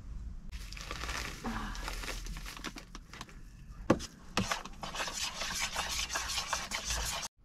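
A utensil stirring mücver batter (grated zucchini mix) in a bowl, scraping and clicking against the bowl in quick strokes, with two sharper knocks about four seconds in.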